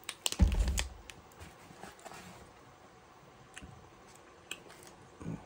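Plastic Gatorade bottle being handled: a few sharp clicks and a dull thump in the first second, then faint scattered clicks and small mouth and handling noises.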